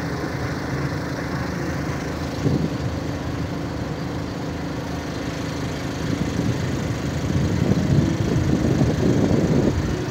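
Tour boat's engine running steadily, growing louder and rougher over the last few seconds.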